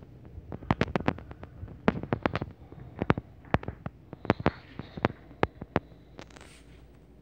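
Irregular run of sharp clicks and knocks, some in quick clusters, typical of hands handling a camera and a plastic phone case. The clicks start about half a second in and die away near six seconds.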